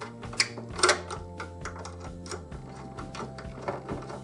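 Screwdriver working a clamp screw on a brass neutral busbar to fasten a neutral wire: a run of light metallic clicks and scrapes, the sharpest about half a second and a second in. Soft background music runs underneath.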